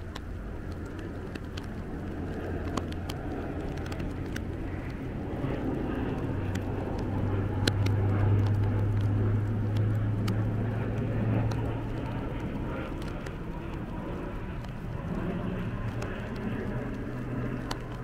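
A motor vehicle passing: a low engine hum with tyre and road noise swells to its loudest about halfway through and then eases off. Scattered sharp ticks of raindrops run through it, and the audio plays in reverse.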